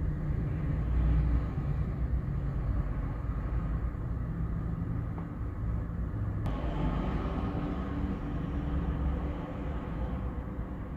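Strong wind buffeting the microphone: a low, uneven rumble. There is a brief click about six and a half seconds in.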